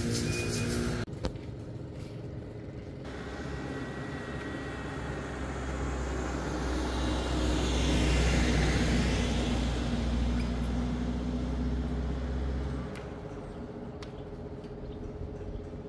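A van driving past on the road: engine hum and tyre noise grow louder to a peak about halfway through, then fade away.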